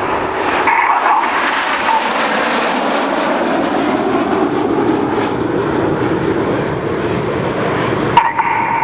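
A formation of BAE Hawk T1 jets, their Adour turbofans giving a steady rushing roar that swells about two seconds in and then slowly eases as the formation flies through a bend.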